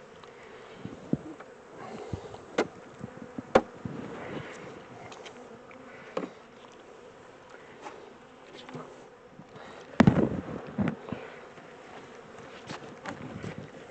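Honey bee swarm buzzing steadily around an open hive, with several sharp knocks and taps through it, the loudest about ten seconds in.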